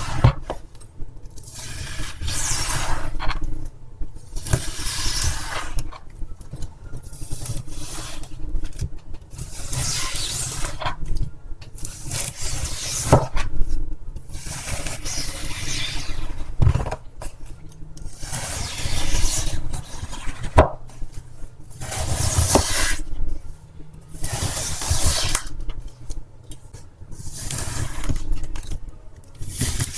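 Wet floral foam being cut, stroke after stroke, about one every one to two seconds, with a few sharp clicks between the strokes.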